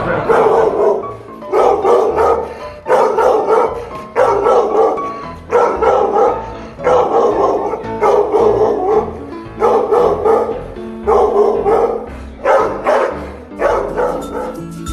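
A dog barking in repeated bursts, about one every second and a half, over background music.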